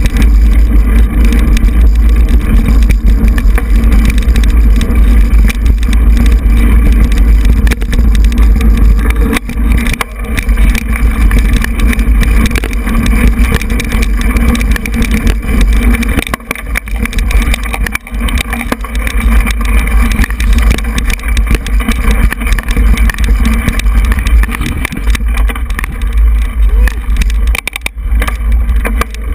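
Mountain bike riding a dirt singletrack: a constant heavy wind rumble on the camera's microphone, with the bike's rattles and knocks over the rough trail.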